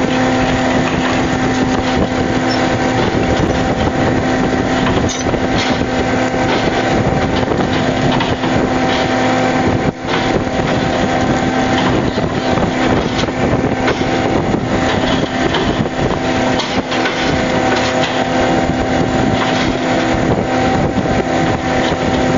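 Fishing boat's engine running with a steady drone.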